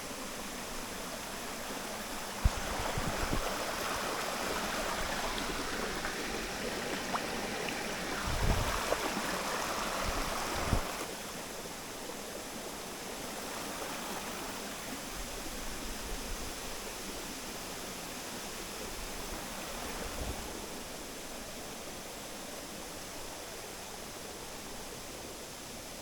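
Running water of a stream or waterfall, a steady rush that is louder for the first several seconds and then eases to a lower level.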